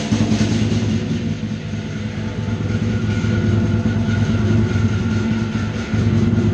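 Lion dance drum and cymbals playing a fast, continuous roll, the drumstrokes running together into one dense, steady sound.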